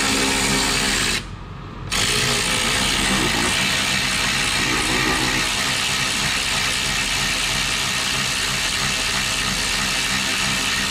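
Electric ratchet running on a socket and extension, driving a self-tapping bolt into the truck's metal. It stops briefly about a second in, then runs on steadily. The bolt is not cutting in: the metal is too thick for self-tapping bolts.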